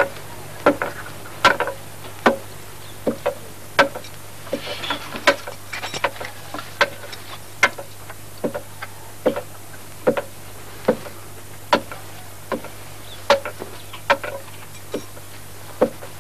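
Sharp knocks at a fairly even pace of a little over one a second, with fainter taps in between, over a low steady hum.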